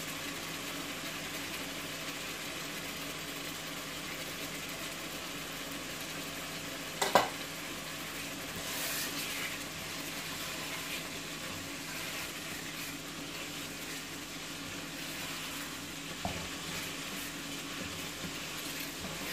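Potato curry gravy simmering and sizzling in a pot on the hob while a wooden spoon stirs it. One sharp knock comes about seven seconds in.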